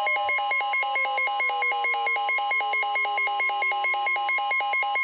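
Emergency alert attention signal ahead of a National Weather Service warning. A steady electronic tone runs under a rapid warbling two-tone alarm that pulses about six times a second, while a fainter tone slowly falls in pitch.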